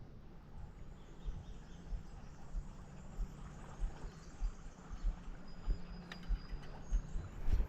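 Quiet outdoor ambience with faint insect and bird sounds, and soft low thumps about twice a second.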